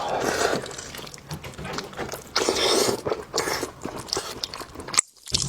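A person biting and chewing gelatinous beef hoof and tendon at close range, with irregular wet smacking and crunching. The sound breaks off briefly near the end.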